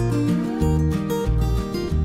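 Background music led by strummed acoustic guitar over a moving bass line with a steady rhythm.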